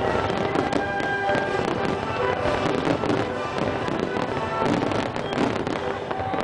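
Aerial fireworks shells bursting one after another, with dense crackling, while music plays alongside.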